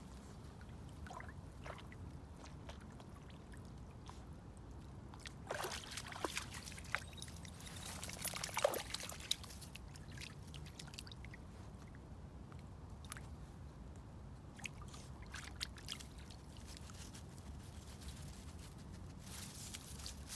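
A West Highland White Terrier's paws sloshing and splashing in shallow lake water as it wades and steps out onto the muddy bank, with a burst of louder splashing partway through and a few small drips and rustles after.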